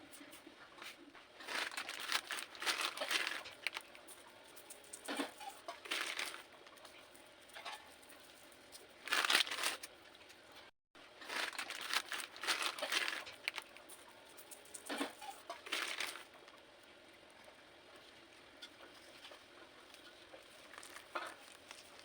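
Blocks of compressed cornstarch being crushed, crumbling and crunching in several bursts of crisp crackle, with quieter crumbling between. The bursts die down to a few faint crackles near the end.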